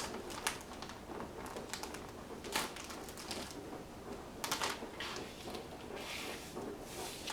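Scattered light clicks, taps and short rustles from hands working on a laptop's screen assembly.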